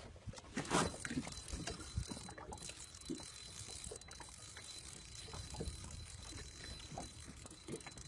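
Water lapping and trickling against a small boat's hull, with scattered light, irregular knocks.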